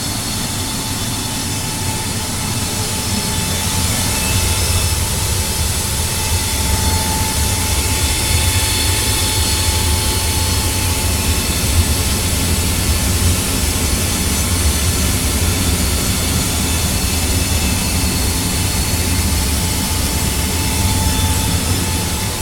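Furnace running: a steady low rumble with airy hiss and a faint steady tone above it, the noise its owner finds annoying. It gets slightly louder about four seconds in.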